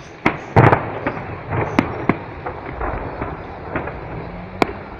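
Aerial fireworks display: a series of sharp bangs from shells bursting overhead, the loudest about half a second in, with smaller pops and crackling in between.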